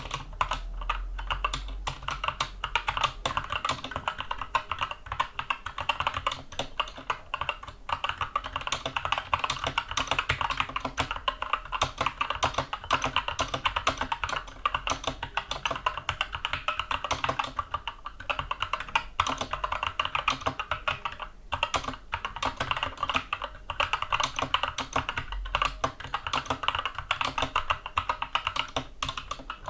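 Continuous fast typing on a Skyloong 64-key mechanical keyboard with Gateron Brown tactile switches, a dense, even run of keystroke clacks.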